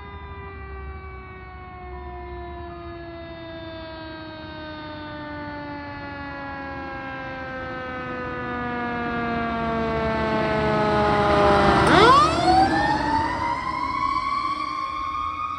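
Fire truck siren, its wail falling slowly in pitch, then dropping sharply and winding back up fast as the truck goes by. The sound grows steadily louder and is loudest about twelve seconds in.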